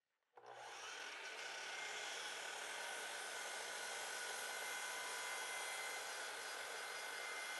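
Makita miter saw switched on about half a second in, its motor running with a steady whine while the blade is lowered to cut an angled point on a wooden stake.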